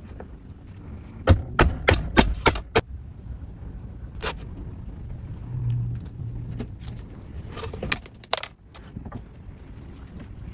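A series of sharp clicks and knocks: a quick run of about six a second or so in, a single one around four seconds, and another cluster near eight seconds, over a low steady rumble.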